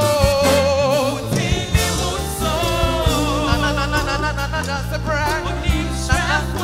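Gospel worship music: a singer holds long wavering notes with vibrato over a steady bass line and regular drum beats.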